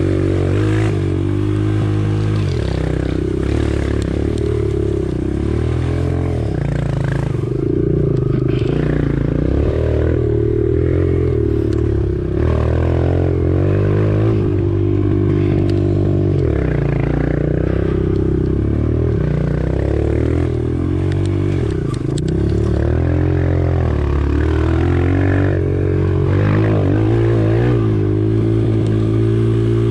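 Motorbike engine running under constantly changing throttle as it is ridden off-road, its pitch rising and falling again and again.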